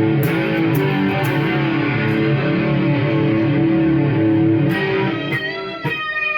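Electric guitar played through a Marshall MG100HFX amp with the chorus effect on: a loud, bassy riff of low notes that about five seconds in gives way to single higher notes ringing out.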